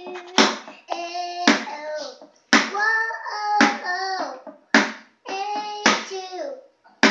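Two thin sticks striking the green top of a plastic stool used as a toy drum, about one hit a second, with a child singing a note after each hit.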